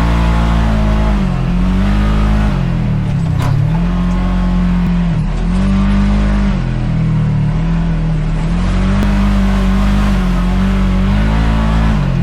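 Side-by-side engine running under load, its pitch repeatedly dropping as the throttle is eased and climbing again as it is reapplied, about every two to four seconds.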